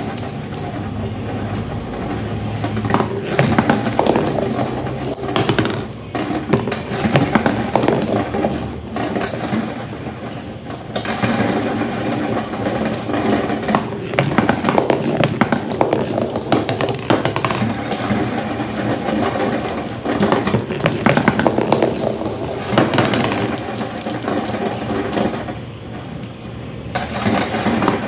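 Marbles rolling and clattering down a homemade marble run: a steady rolling rumble full of small clicks as they hit the track and each other.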